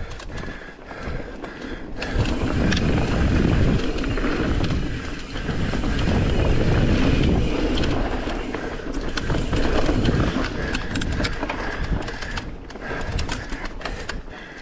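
Mountain bike descending a dirt singletrack: wind buffeting the helmet-camera microphone over the tyres rolling on dirt, with frequent short rattles and knocks from the bike over bumps. The rushing noise is loudest through the middle, easing near the end.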